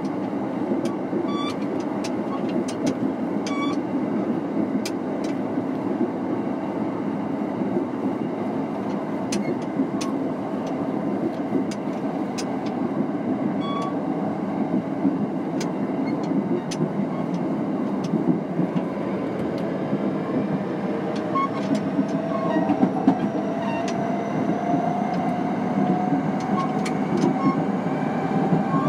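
Kintetsu 3220 series electric train running, with a steady rumble and scattered sharp clicks. From about two-thirds of the way through, the traction motor's whine rises slowly in pitch as the train gathers speed.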